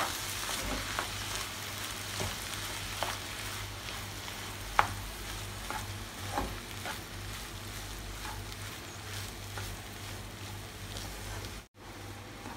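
Potato and carrot masala sizzling in a nonstick frying pan as a wooden spatula stirs and mashes it, with scattered light knocks of the spatula against the pan. The sound drops out for a moment near the end.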